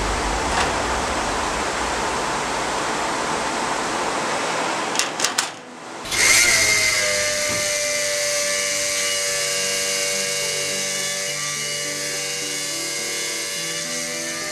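Steady rushing noise, broken by three quick clicks about five seconds in. Then a steady high machine whine takes over, with background music.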